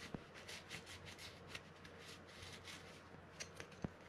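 Shop towel rubbing and wiping over a Shimano Stradic 4000FJ spinning reel's rotor in quick scratchy strokes, with a couple of faint clicks, one just after the start and one near the end.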